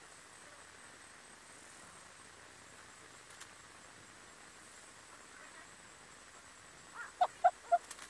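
Faint, steady outdoor background, then near the end four short, loud call notes about a quarter-second apart from a red-billed hornbill.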